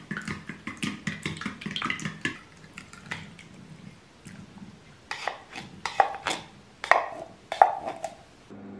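Chopsticks beating eggs in a ceramic bowl, a quick run of light clicks against the bowl. Then a few louder, sharper knocks and clinks as canned sweetcorn is pushed out of a tin into the bowl with the chopsticks.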